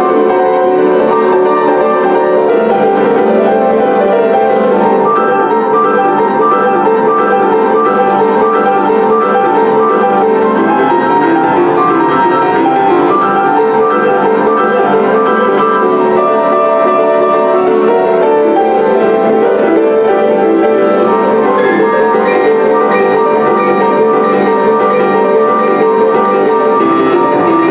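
Solo Soldera grand piano playing boogie-woogie, with a steady, unbroken stream of notes.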